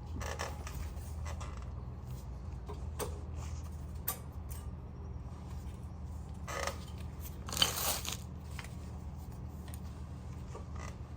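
Scattered clicks and knocks of hand tools and metal brake parts being handled, the loudest about seven and a half seconds in, over a steady low hum.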